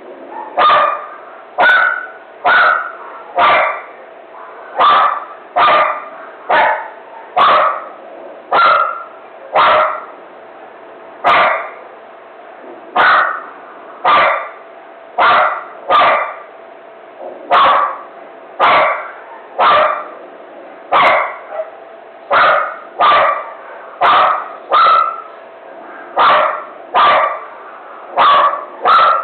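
A dog barking over and over, about one loud bark a second, with only brief pauses.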